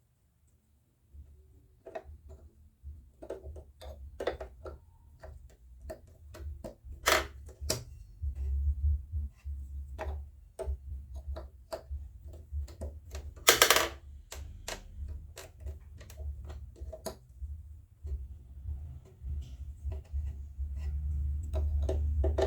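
Irregular sharp plastic clicks and knocks as buttons and parts are handled and pressed into a Janome sewing machine's plastic casing, a click meaning a button has snapped into place, over a low uneven rumble.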